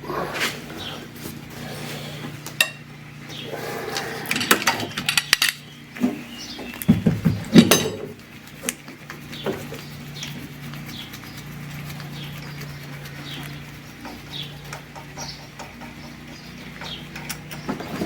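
Metal tools and parts clinking and knocking irregularly during work on an engine, with a cluster of louder clanks in the middle. A small bird chirps repeatedly, short falling notes about once a second, over a steady low hum.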